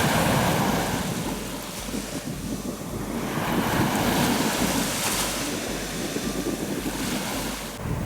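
Surf breaking and washing on a sandy beach, swelling and ebbing in slow surges, with wind rumbling on the microphone.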